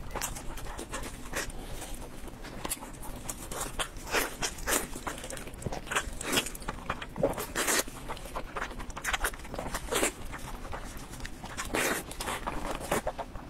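Close-miked eating: meat torn from the bone, bitten and chewed, with many irregular wet clicks and smacks from the mouth.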